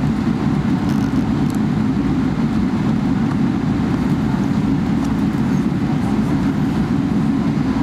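Steady low rumble of a Boeing 777-300ER with its GE90 engines running, holding even with no rise or fall in pitch.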